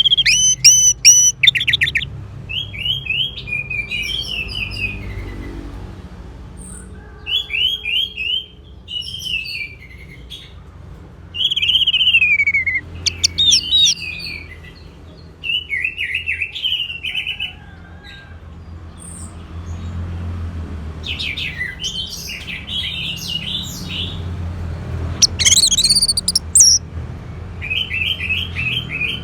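Orange-headed thrush singing: a series of short, varied phrases of quick, slurred whistled notes with brief pauses between them, some phrases rising higher and louder.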